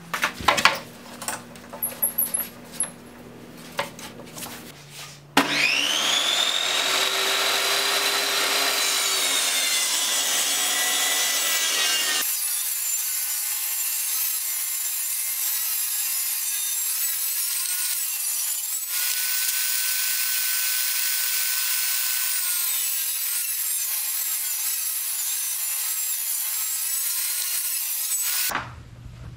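Benchtop table saw ripping a long weathered board. A few knocks of handling come first, then the saw starts about five seconds in with a rising whine. It runs loud and steady, its pitch dipping now and then as the blade takes the wood, and cuts off abruptly near the end.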